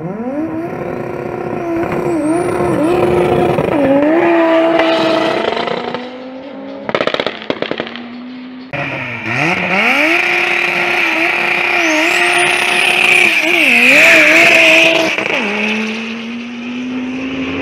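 A drag-racing car launching and accelerating hard down the strip, its engine note sweeping up and then dipping briefly at each gear change. About nine seconds in, a second run starts the same way. There is a short patch of crackling just before the second run.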